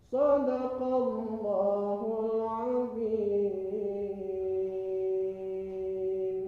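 A man's voice chanting in the melodic style of Quran recitation: a phrase that rises and falls in pitch for about three seconds, then settles into one long held note.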